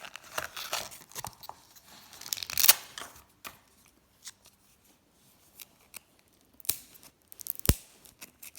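Toy packaging being torn open by hand, with crackling and tearing bursts, the loudest a little under three seconds in. After that come scattered small clicks and two sharp snaps near the end.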